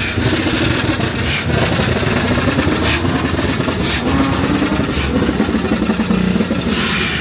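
Car engines running, with one engine's pitch rising and falling as it is revved.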